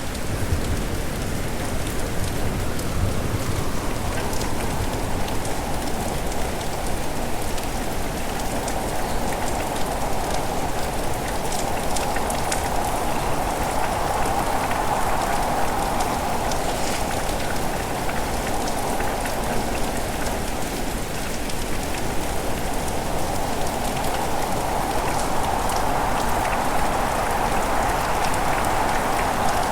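Steady heavy rain in strong wind, with a rushing that swells and eases every several seconds. A low rumble of thunder dies away in the first few seconds.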